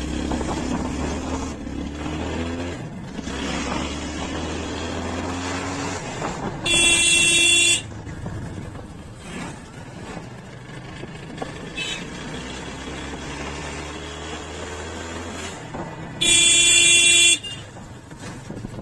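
Yamaha FZ25's single-cylinder engine running under way, its note climbing and falling with the throttle. A vehicle horn sounds twice, loud, about a second each, around seven and sixteen seconds in.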